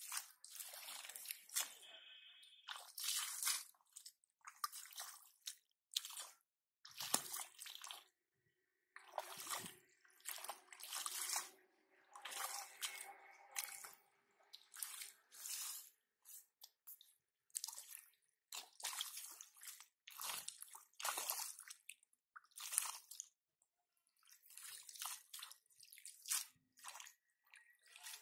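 Hands groping and squelching through shallow muddy water and wet weeds, in short irregular splashy bursts with brief gaps between them.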